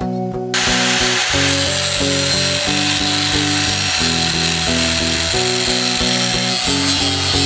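Corded angle grinder with a cut-off disc cutting through rusty steel angle iron, a steady hissing grind that starts suddenly about half a second in. Background guitar music plays throughout.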